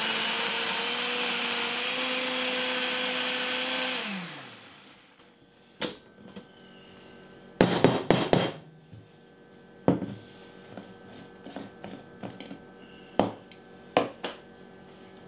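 Ninja personal blender pureeing strained salsa: the motor runs steadily for about four seconds, then winds down. After it stops come scattered clicks and knocks of the plastic blender cup being twisted off the motor base and set on the counter, loudest about eight seconds in.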